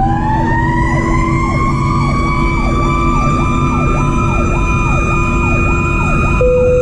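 Sirens of a 2010 Pierce Arrow XT fire engine under way. One siren winds up slowly to a high held wail while an electronic siren yelps about twice a second over the diesel engine and road noise. Near the end a short horn blast sounds, the loudest moment.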